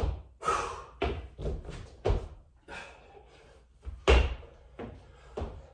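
Body-weight impacts of a burpee workout with push-ups and lunges: hands and feet thudding on the floor in a run of irregular thumps, the loudest about four seconds in.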